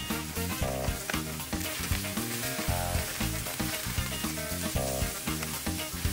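Sliced chicken breast frying in chili oil in a small square pan, stirred with a metal spoon, while vegetables fry in a large pan beside it: a steady sizzle. Background music plays underneath.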